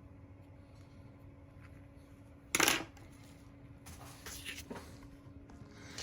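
A short metallic clatter about halfway through as a small metal tool or part is set down on the work surface. Faint light clicks and scraping of small phone parts being handled follow.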